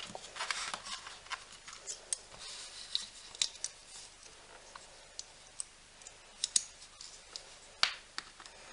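Scattered small clicks and light rustling as a metal binder clip is handled and fitted over a looped bundle of hemp cord at the edge of a cutting mat, with a few sharper clicks in the second half.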